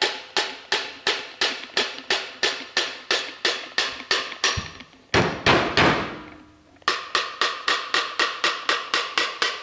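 A rubber mallet tapping an aluminium EGR valve housing with light, even blows, about three a second, to knock its middle section free of the valve body. A little past the middle a louder, longer noise breaks the tapping, then the tapping resumes.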